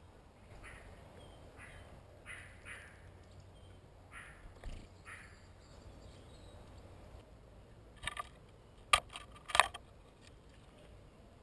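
A few short, harsh bird calls, then near the end a blue tit arrives at its nest hole in the tree trunk right by the microphone. Its landing and scrabbling at the bark make three sharp scratching knocks, the loudest sounds here.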